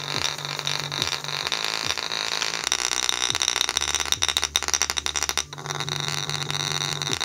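A JBL cylindrical portable speaker pushed hard on a bass test, playing deep, distorted bass with a buzzing rattle as a golf ball bounces on its vibrating bass radiator. A deeper bass note comes in near the middle for about a second and a half.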